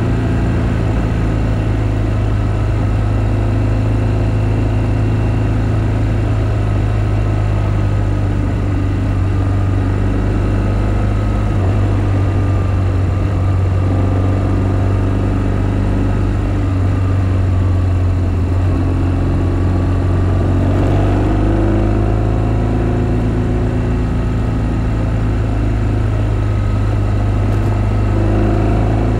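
BMW R1200GS flat-twin boxer engine running steadily while the motorcycle is ridden, its pitch dipping and rising briefly about two-thirds of the way through as the revs change.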